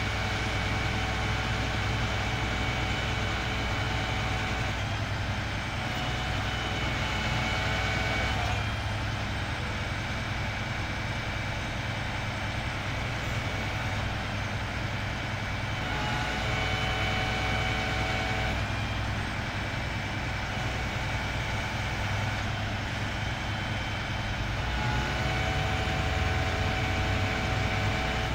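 Crane truck's diesel engine running steadily, with a steady high whine from the knuckle-boom crane's hydraulics that comes and goes three times, at the start, about midway and near the end, as the slung load is lifted.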